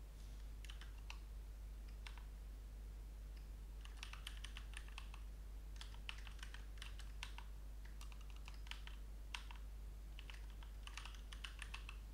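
Typing on a computer keyboard: several short bursts of keystroke clicks with brief pauses between them.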